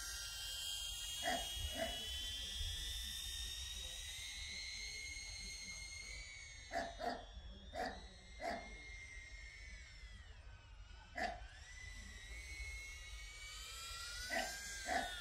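A DJI Avata drone's propellers whine steadily, several high tones whose pitch slowly rises and falls. Over the whine a dog barks in short bursts, often two at a time: twice early on, four times in the middle, once later and twice near the end.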